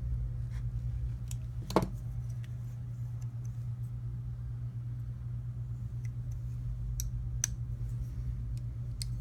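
Ontario Carter Prime folding knife being worked on: a sharp click about two seconds in, then a few light clicks near the end as the blade is swung on its freshly tightened IKBS ball-bearing pivot to test the action. A steady low hum runs underneath.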